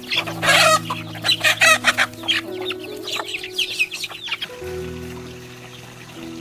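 Chickens clucking over background music with sustained low notes. The clucking thins out about four and a half seconds in, leaving mostly the music.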